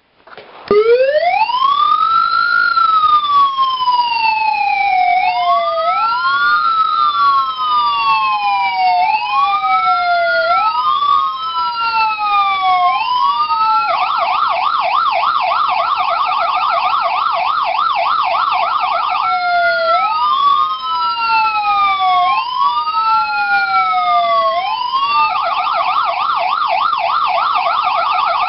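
Signal SA-441 Magnum electronic siren starting up about half a second in with a wail tone that rises quickly and falls slowly, repeating about every two seconds. Pressing the siren button switches it to a rapid yelp about halfway through. It drops back to the wail, then goes to the yelp again near the end.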